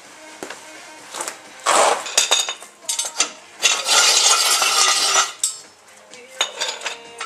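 Metal clanking and knocking with a scrape of about a second and a half around the middle: a steel jack stand being pulled out from under the car.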